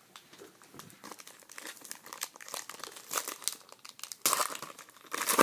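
A foil trading-card pack crinkling as it is handled and torn open by hand, with two louder rips near the end.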